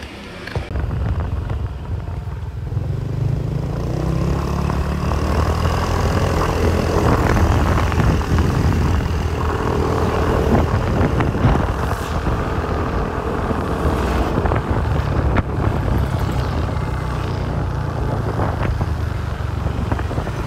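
Motorcycle engine running while riding along a street, with a steady low rumble of engine, road and wind noise that starts abruptly about half a second in.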